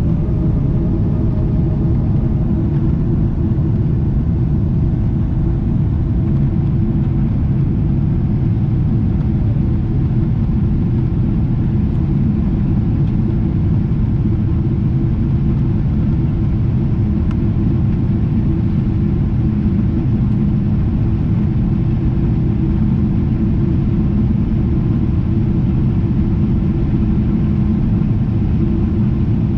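Steady low rumble of engine and airflow noise inside the cabin of a Boeing 777-300ER jet airliner, unchanging in pitch and level.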